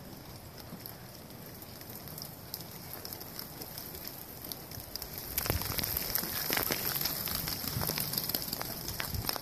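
Steady patter of light rain. From about five and a half seconds in it grows louder, with a run of sharp clicks and soft thumps.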